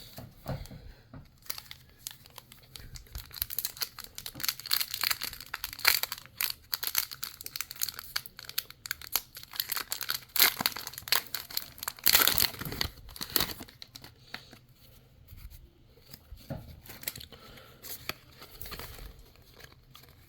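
Plastic wrapper of a trading card pack being torn open and crinkled in the hands, a dense crackling that eases off about two thirds of the way through into quieter, scattered handling sounds.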